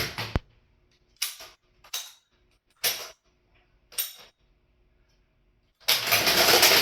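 Electrified antique National Cash Register being worked: a sharp click, then four separate clacks about a second apart as keys are set, then near the end a loud clattering mechanical cycle of about a second as the motor drives the mechanism and the cash drawer shoots open, with a ringing tail that fades.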